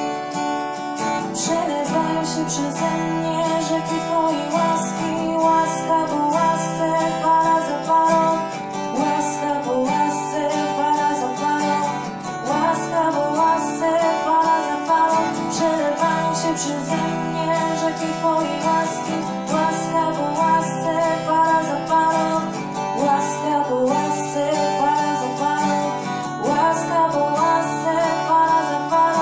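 Acoustic guitar strummed in a steady rhythm, with a woman singing a melody over it.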